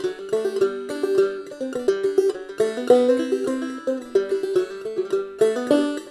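Kevin Enoch open-back banjo played solo in clawhammer style, tuned fDGCD: a quick, steady rhythm of down-struck notes with a bright plucked ring.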